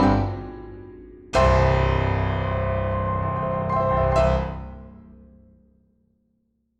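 Background piano music: a chord rings and decays, a new chord is struck about a second and a half in and held, and the music fades out before the end.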